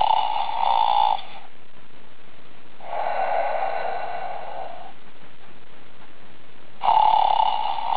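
A bear snoring in slow breaths: a loud snore at the start, a softer, longer one about three seconds in, and another loud snore near the end.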